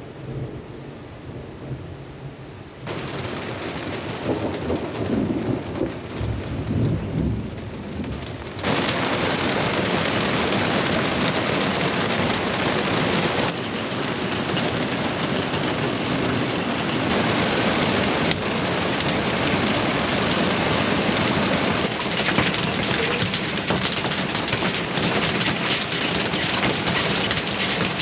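Heavy rain pouring down, growing louder in two steps in the first third and then holding a steady hiss. A low rumble runs under it in the first part.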